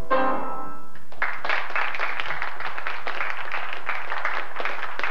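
The final chord of a stage song rings out and fades, and about a second in a live audience breaks into applause that keeps going.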